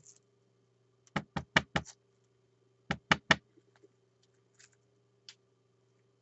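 Quick sharp taps of small plastic resin-mixing cups being handled: four in quick succession, then three more a second later, followed by a few faint ticks.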